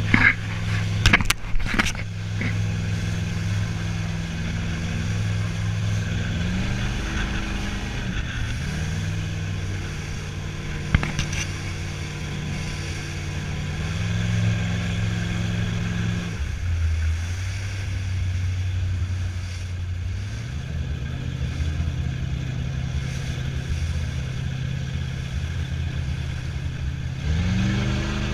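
Motorboat engine running under way, its low hum stepping up in pitch several times as the throttle changes, dropping about halfway through, then climbing again near the end, over a steady hiss of wind and water. A few sharp knocks sound in the first two seconds.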